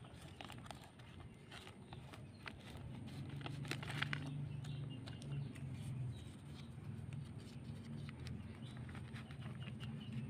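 Thin plastic sheet crinkling and scissors snipping as plastic strips are cut and handled to pack into a sickle's handle socket: a string of short sharp clicks and rustles. From about three seconds in a low steady hum sounds beneath, and faint rapid high chirping starts near the middle.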